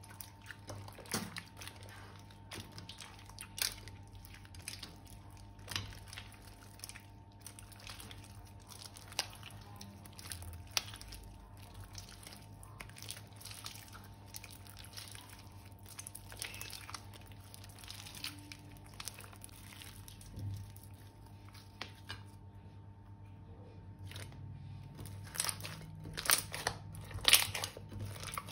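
Slime being squeezed and mixed by hand, with irregular crinkling, crunching and sharp sticky clicks, busier and louder near the end.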